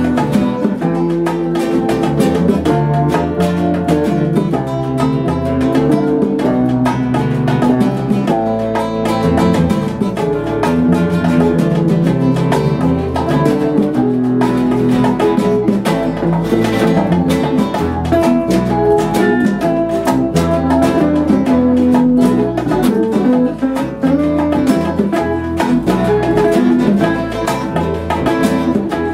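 Instrumental Cuban-style guitar improvisation: acoustic and electric guitars playing a steady rhythm together.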